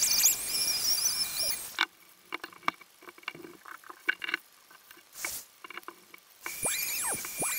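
Small handheld power tool shaping maple, running with a steady high whine and squeaky high scraping sounds. It stops sharply about two seconds in, leaving light clicks and knocks of handling and a short hiss, then starts up again near the end.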